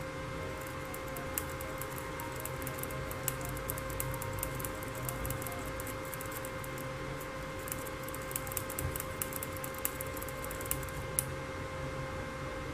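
Faint, rapid light clicking and tapping of acrylic paint and thinner being stirred together in a small cup, over a steady hum.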